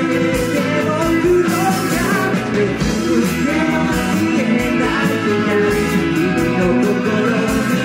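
Live rock band playing: a male lead vocal sung over electric guitars, bass, drums and keyboard, loud and steady.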